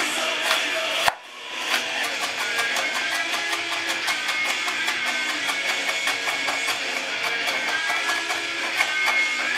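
Guitar-driven background music with a steady strum, cutting out abruptly about a second in and coming straight back.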